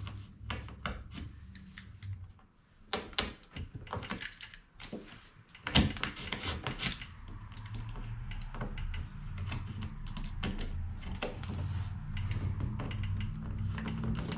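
Hand tool digging and scraping old filler out of a polypropylene gas tank: irregular clicks, picks and scrapes, with one sharp knock a little before halfway. A low steady hum comes in after that and slowly grows louder under the scraping.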